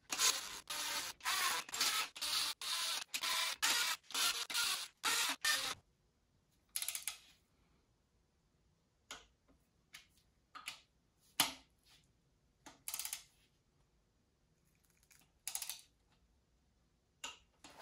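Cordless drill spinning the BMW N55's bedplate main bearing bolts down in a rapid string of short bursts, stopping about six seconds in. A click-type torque wrench then takes over, bringing the bolts to 20 Nm with a scattered series of single clicks and short ratcheting.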